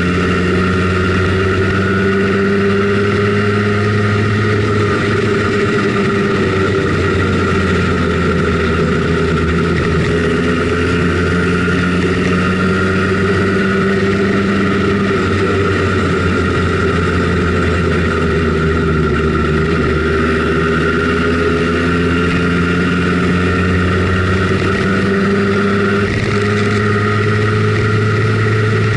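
Simson Schwalbe KR51/2 scooter's small two-stroke single-cylinder engine running steadily under way, its pitch dipping slightly about two-thirds of the way through and then rising again.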